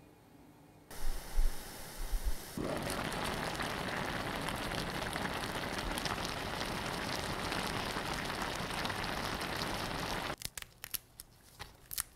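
Paper pages rustling as a cookbook is leafed through, then a steady sizzle of braised pollack cooking in a pot that cuts off abruptly. Near the end come a series of sharp snaps as gloved fingers pinch the stems off green chili peppers.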